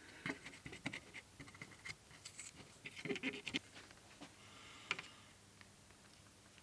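Faint scratching and light ticking of a cotton swab scrubbing a printed circuit board, then a brief soft hiss and a louder click about five seconds in as a soldering iron is put to the board.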